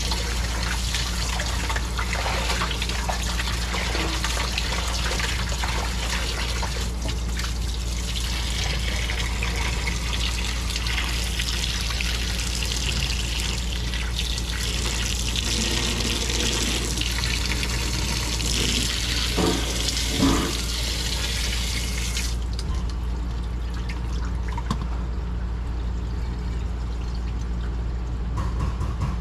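Tap water running steadily into a stainless steel bowl as raw chicken pieces are rinsed and rubbed by hand, with a few clinks of handling; the tap shuts off about three-quarters of the way through. A steady low hum runs underneath.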